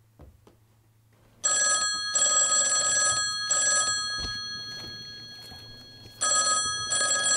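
Telephone ringing for an incoming call: a loud, stuttering ring starts about a second and a half in and fades away slowly, then a second ring starts near the end.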